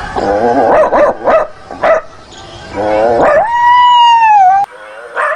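Several short dog-like barks and yelps, then one long howl held on one pitch that drops as it ends. The sound breaks off suddenly, and a second howl starts near the end.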